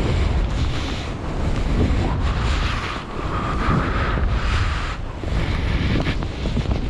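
Wind buffeting a head-mounted camera's microphone as a skier descends fast through deep, light powder, a steady low rumble. Over it, skis hiss through the snow in swells that rise and fall every second or two with the turns.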